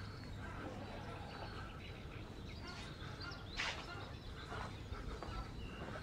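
Quiet outdoor street ambience: a low steady rumble with scattered faint chirps and one sharper click or chirp a little past halfway.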